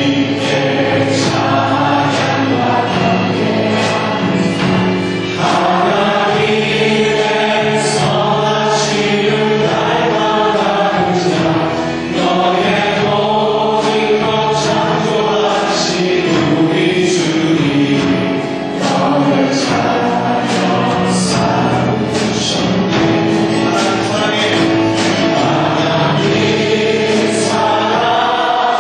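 A church praise team sings a Korean gospel song into microphones, male and female voices together, over a live band that includes electric bass.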